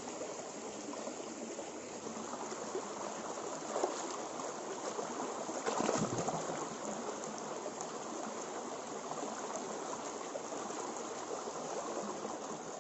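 Shallow stream running over rock, with hands splashing and groping in the water; the splashing is loudest about six seconds in.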